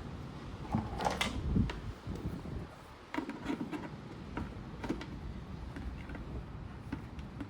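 Scattered knocks and clicks of objects being handled, with a louder cluster about a second in.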